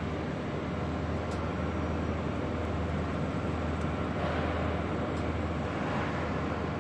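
Borgonovo 800/ITI hot embossing machine running with a steady low hum and a rushing noise as the teak board feeds through. The rushing swells briefly a little past the middle.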